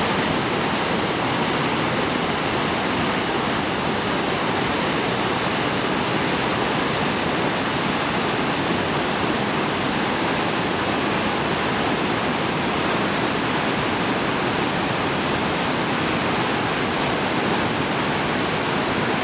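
Waterfall cascading over rocks: a loud, steady rush of falling water.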